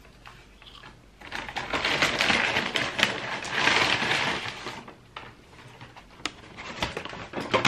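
Paper fast-food packaging rustling and crinkling as it is handled. It starts about a second in, is loudest for a couple of seconds, then dies down to scattered light clicks and taps.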